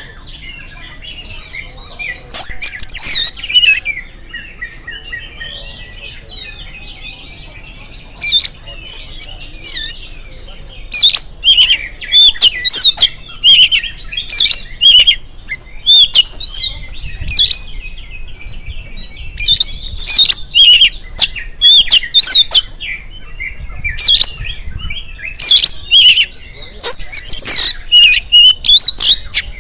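Oriental magpie-robin (kacer) singing strongly: loud bursts of rapid, whistled, warbling phrases every second or so, with softer twittering between them.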